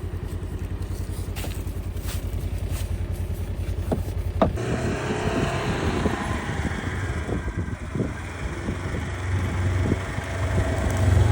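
Farm vehicle's engine running steadily, with a sharp knock about four seconds in and then rattling and knocking over the engine as it drives along.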